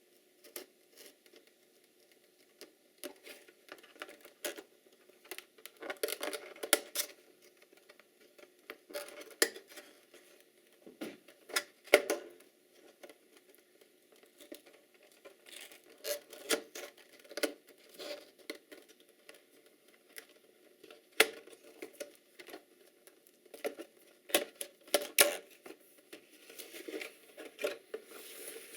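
Hands unpacking a product box: irregular taps, clicks and short rustles of cardboard and plastic packaging being handled and opened.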